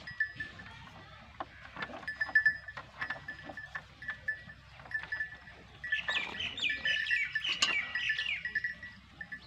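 High-pitched animal calls, a run of short cries that bend downward, in the second half, over a faint on-and-off high chirping tone. Scattered knocks and clicks come in the first half.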